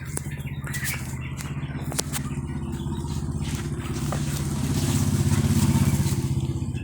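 An engine running with a steady low pulsing note, growing louder about five seconds in and then easing off, with a few sharp clicks over it.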